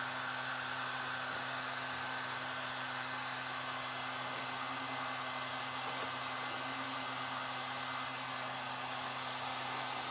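Temperature-controlled heat gun blowing steadily with a low hum, and a few faint clicks.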